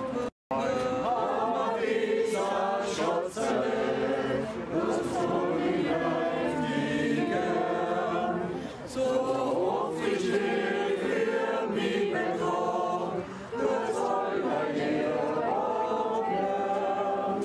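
A group of men and women singing a hymn together in held, drawn-out notes, with short breaks for breath between phrases. The sound cuts out completely for a moment just after the start.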